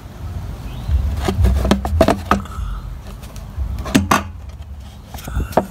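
A series of sharp clicks and knocks as a small engine's fuel tank is worked into its mounting slots on the frame, over low rumbling handling noise. The loudest knock comes about four seconds in.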